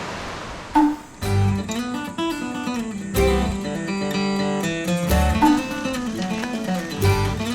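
Background music: an acoustic guitar tune with a bass line comes in about a second in, after a moment of even rushing noise.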